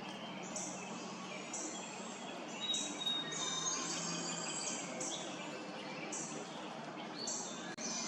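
Young barred owls giving raspy, hissing begging calls, repeated about once a second, with a few thin songbird notes among them.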